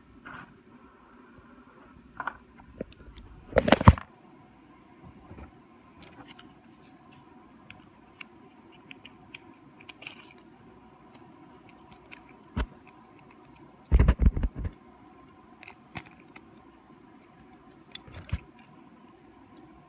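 Clicks and knocks of a small diecast toy car being handled, over a faint steady hum. A louder cluster of knocks comes about four seconds in and another around fourteen seconds, with single knocks between.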